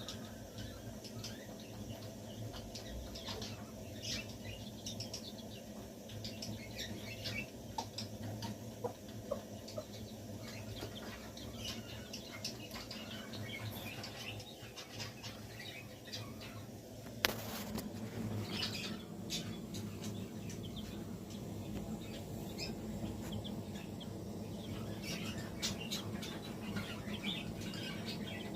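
Chicken chick peeping in short, high chirps, with scratchy rustling and one sharp click about seventeen seconds in.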